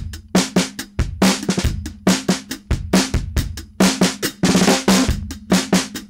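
A drum kit groove of kick and snare, recorded with a single microphone and run through an Otari MTR-90 2-inch tape machine driven past its distortion point. The tape saturation distorts each kick hit and holds the hits at an even volume, adding low-end weight and a distorted top end.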